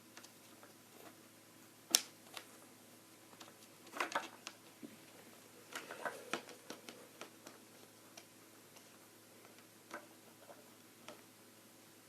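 Hard plastic toy pieces clicking and tapping as they are handled and fitted together, with one sharp click about two seconds in and small clusters of clicks around four and six seconds.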